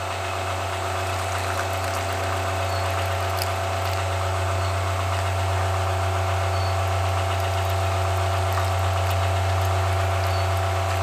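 A steady, unchanging low mechanical hum, as from a small motor running.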